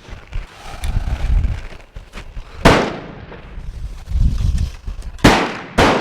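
Rifle shots at a range: one shot about two and a half seconds in, then two more half a second apart near the end, each with a short echo trailing after it.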